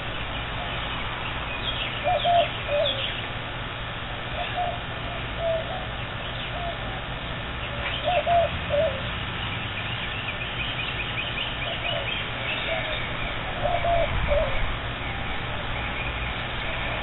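A dove cooing in repeated short phrases, loudest about two, eight and fourteen seconds in, with smaller birds chirping higher behind it.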